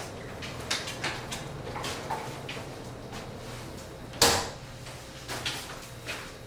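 A string of light clicks and knocks, like things being handled or set down, with one loud knock about four seconds in, over a steady low hum.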